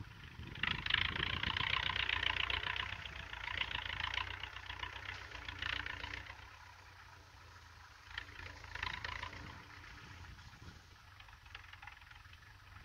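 Diesel engine of an MTZ tractor plowing a field in the distance, a steady low rumble. A louder rasping noise lies over it for the first half and again briefly around eight seconds.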